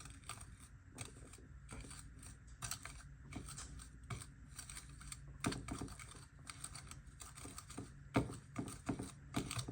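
Eating utensil clicking and scraping against a plate in irregular taps as cooked instant noodles are tossed with their seasoning, with a few sharper knocks near the end.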